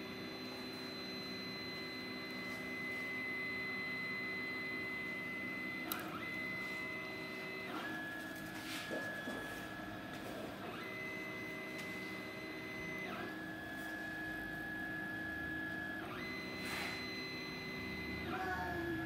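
Stepper motors of a CNC hot-wire foam cutter whining as the machine cuts foam: a steady high tone that jumps to a new pitch every two to three seconds as the axes change speed and direction. A sharp click about six seconds in.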